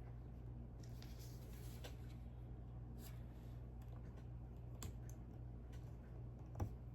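Faint, scattered clicks of plastic Lego bricks being handled and pressed together, a few seconds apart, with a sharper click near the end, over a steady low hum.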